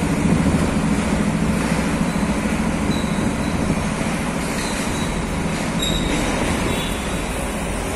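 Steady drone of slow-moving heavy road traffic at close range: the engines and tyres of a multi-axle heavy-haul truck and nearby motorcycles. The low hum eases a little about halfway through.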